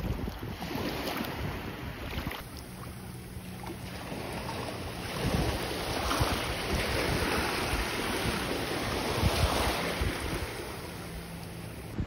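Surf washing in at the water's edge, swelling twice, with wind buffeting the microphone.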